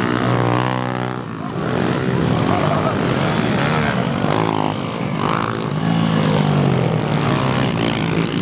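Several pit bikes racing past on a dirt track, their small single-cylinder engines revving hard. Engine notes rise and fall again and again as the bikes accelerate, shift and go by.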